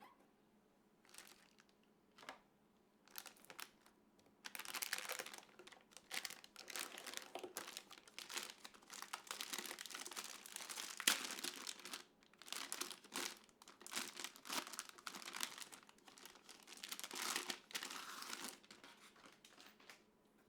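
Packaging being handled: crinkling and rustling in irregular bursts with small sharp clicks, a few brief rustles at first, then near-continuous from about four seconds in until just before the end.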